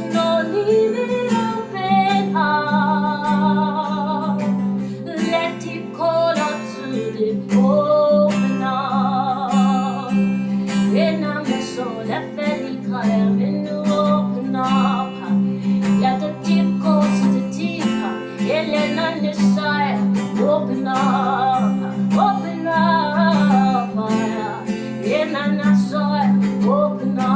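Slow worship music: acoustic guitar over a steady held low drone, with a voice singing long, wavering melodic lines.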